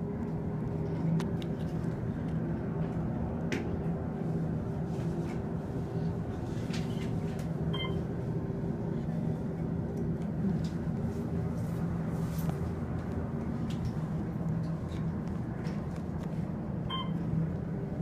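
Steady hum and rumble of an Otis elevator car travelling down, heard from inside the car, with a short beep about eight seconds in and again near the end.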